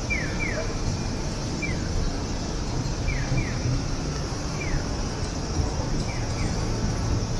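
Summer city ambience: a steady high buzz typical of cicadas, over a low rumble of traffic and crowd, with short falling chirps repeating every second or so, some in pairs.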